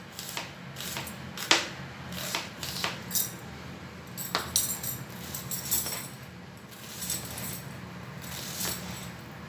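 Chef's knife chopping an onion finely on a plastic cutting board: irregular taps and knocks of the blade against the board, two of them louder, about a second and a half and four and a half seconds in.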